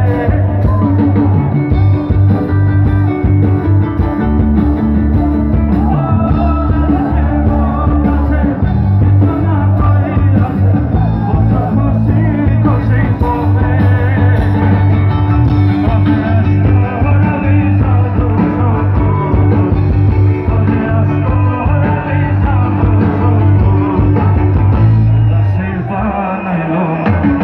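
Live rock band playing loud through a PA system: singing over electric and acoustic guitars with heavy bass. Near the end the bass drops out and the music thins.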